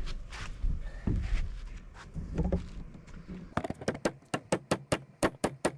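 Fast run of sharp hammer blows, about five a second, driving a barn spike into a timber post, starting about three and a half seconds in.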